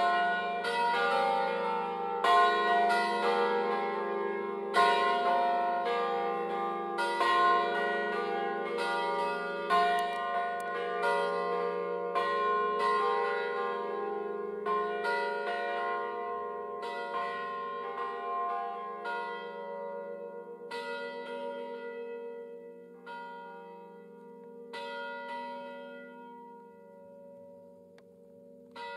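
Peal of five swinging church bells, a set in slightly sharp F3 cast by Angelo Ottolina of Bergamo in 1957, hung on wheels. The strikes overlap densely at first, then grow sparser and quieter, about one every two seconds near the end.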